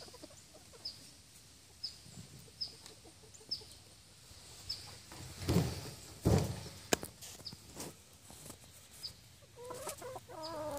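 Game fowl calling with a wavering, pitched call near the end, while a short high chirp repeats about once a second throughout. Two loud knocks come near the middle.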